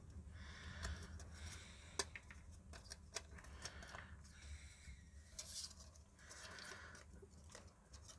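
Small plastic clicks and rubbing as the plastic case parts and circuit board of a DSO150 oscilloscope kit are handled and slid together by hand, over a steady low background rumble.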